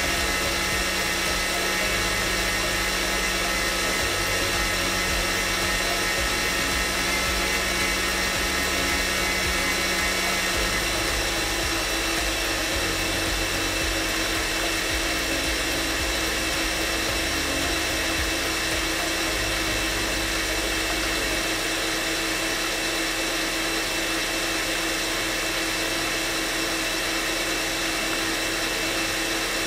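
An electric kitchen mixer running continuously, a steady motor whir that shifts in tone about a third of the way in and again about two-thirds in.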